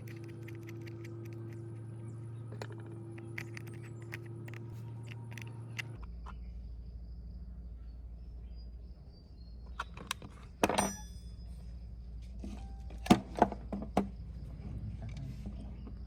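Light metallic clicks and clinks of small metal parts being handled over a steady workshop hum, changing to a lower hum about six seconds in, with a few louder sharp knocks of metal near the end.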